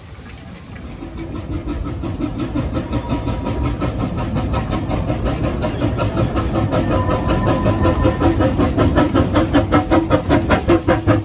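Narrow-gauge steam locomotive 'Fiji' working a train past at close range: a quick, even beat of exhaust chuffs that grows steadily louder as the engine draws level.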